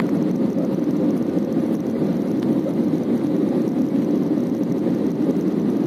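Steady cabin noise of an Airbus A320-family jet airliner on its approach descent: engine and airflow rumble heard from inside the cabin, even and unbroken.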